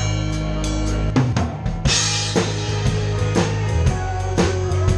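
Live rock band with the drum kit up front. Held bass and guitar tones give way to a drum fill about a second in, which lands on a crash cymbal. A steady kick-and-snare beat with cymbal ticks follows.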